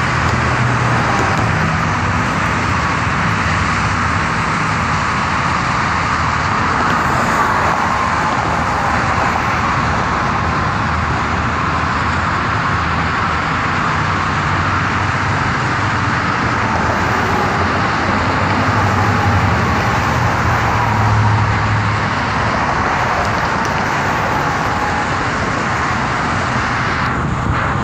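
Steady, loud road-vehicle noise without a break, which cuts off suddenly near the end.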